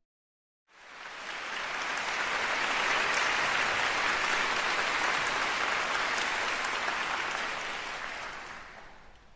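Audience applauding. It swells up about a second in and fades away near the end.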